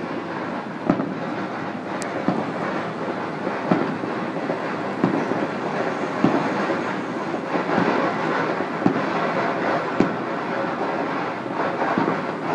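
Fireworks and firecrackers going off across a city: a continuous din with irregular sharp bangs about every second or so.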